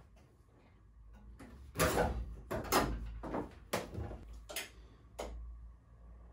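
Corded electric metal shear cutting into the sheet-steel roof of a VW Polo 2F in short stop-start bursts, about six between two and five seconds in.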